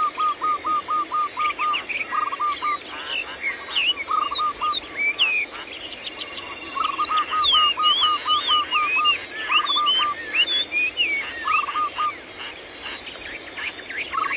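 Birds calling in varied short whistles and chirps, with several runs of quick repeated notes lasting about a second each, over a steady high insect drone.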